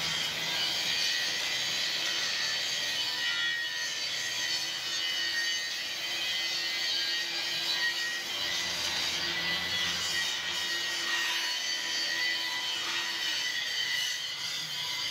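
Handheld electric angle grinder running steadily, its disc grinding against a steel bar: a continuous rasping with a high, steady whine.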